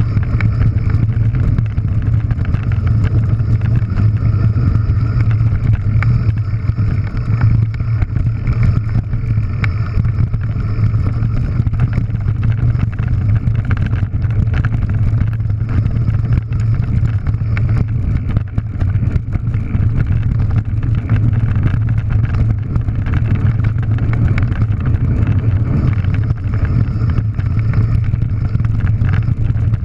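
Mountain bike running fast down a loose, rocky gravel track, heard close up from a camera on the rider or bike: a steady low rumble of tyres on gravel and wind on the microphone, with constant rattling and clattering of stones and the bike over the rough surface.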